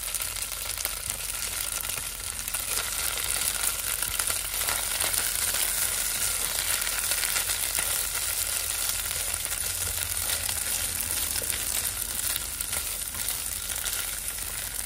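Sausage and rice frying in hot grease in a pot: a steady sizzle full of fine crackles, with a silicone spatula stirring through it.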